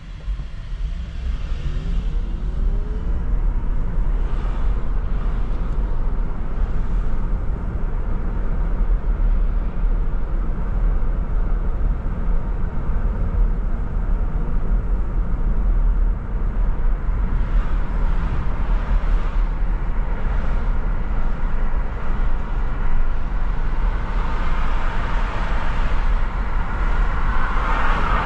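Steady rumble of a moving car's engine and tyre noise, building up over the first couple of seconds as the car gets moving.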